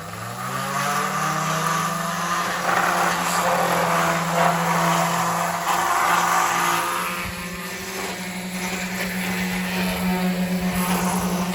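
A machine's motor starting up and running steadily, its hum rising in pitch in the first second and then holding, with a harsh noisy layer over it.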